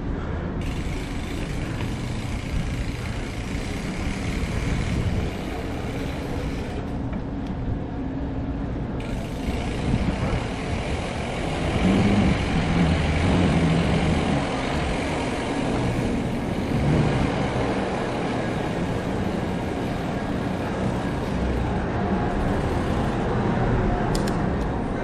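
Mountain bike rolling over concrete, its tyre noise mixed with wind rumble on the GoPro's microphone. It gets louder about halfway in as the bike picks up speed down a ramp.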